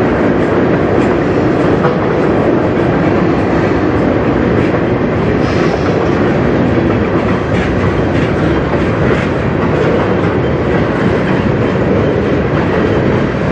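Freight train cars (tank cars, a covered hopper and boxcars) rolling past close by, a loud steady rumble of steel wheels on rail with repeated clicks through it.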